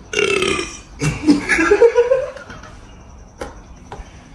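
Non-speech vocal outbursts: a short loud one, then a longer one about a second in that rises in pitch.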